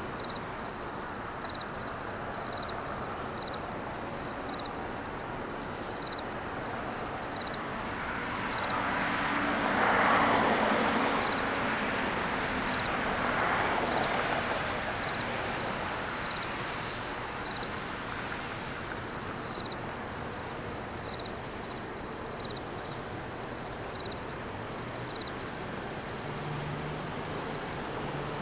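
Riverside outdoor ambience: a high, steady chirping that pulses over and over, with a louder rushing swell that builds about eight seconds in, peaks twice and fades again.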